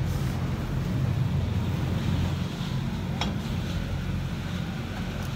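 Chairlift machinery at the top station running with a steady low hum, with wind on the microphone. A brief rising squeak cuts in about three seconds in.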